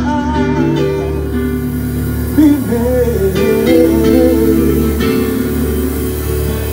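Live soul band playing, with guitar and upright bass; a singer's held, wavering note ends a sung line in the first second, then the band carries on between vocal lines.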